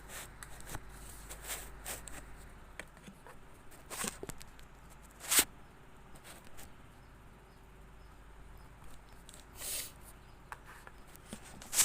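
Scattered clicks and rustles, sharpest about five seconds in and again at the very end.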